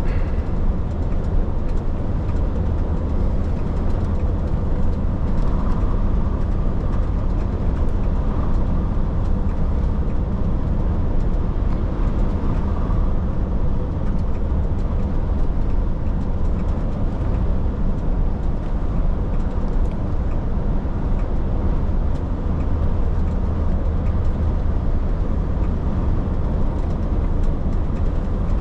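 Truck engine and road noise while driving at a steady speed: a constant low drone with a hiss of tyres and wind above it.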